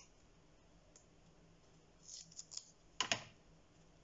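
Paper-crafting work with double-sided tape: a few short crinkly rustles about two seconds in, then a sharp double click a second later.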